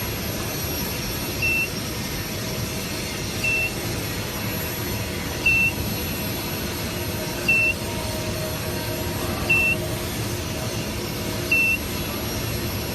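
A short, high electronic beep repeating about every two seconds, six times, over a steady machinery hum.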